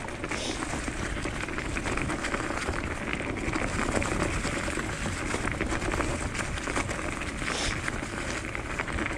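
Diggler DSK dog scooter rolling over a dirt trail covered in dry leaves: a steady crackle and rustle of leaves under the tyres, with many small clicks and rattles.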